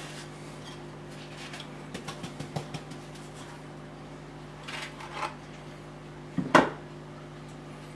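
Kitchen handling sounds as a sugared quark loaf is turned in a ceramic bowl of sugar and loose sugar is brushed across a wooden cutting board. There are light clicks and scrapes, a short scratchy rustle about five seconds in, and one sharper knock about six and a half seconds in, over a steady low hum.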